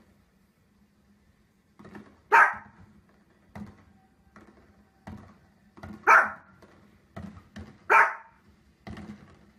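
Dog barking: three loud single barks, about two seconds in, around six seconds and about eight seconds, with fainter short sounds in between.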